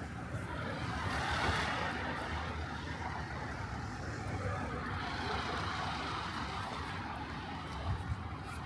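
Road traffic passing on a city street, a steady rush of tyre and engine noise that swells as a vehicle goes by about a second in and again around five seconds in.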